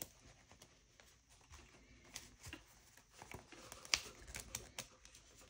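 Faint rustling of stiff Aida cross-stitch fabric being rolled and handled, with a run of sharp little clicks and taps in the second half as plastic spool clips are pressed onto the rolled fabric edge.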